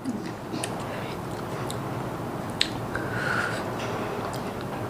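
A person chewing a raw green chilli: a few faint, scattered mouth clicks over a steady background hiss.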